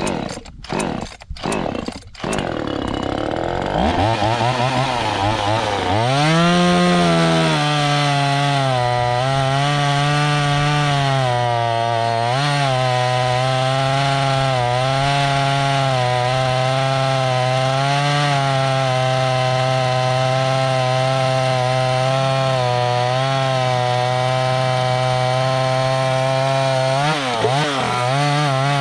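25cc two-stroke chainsaw (Neotech, 12-inch bar): a few short pulls of the starter cord, then the engine catches and revs up to full throttle. It holds a high, slightly wavering pitch with small dips as it cuts through a thick log of dead hardwood, and the pitch wobbles near the end.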